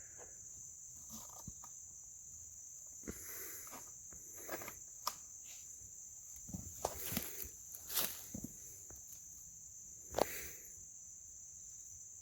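Crickets chirping in a steady high drone, with scattered sharp clicks, knocks and short rustles of handling close by, loudest about two-thirds of the way in and again near the end.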